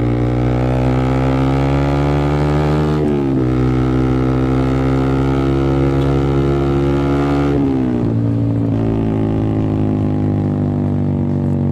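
Yamaha R15 V3's 155cc single-cylinder engine through an R9 aftermarket racing exhaust, accelerating with revs climbing. It shifts up twice, about three and seven and a half seconds in, with the note dropping at each shift, then the revs ease slowly off.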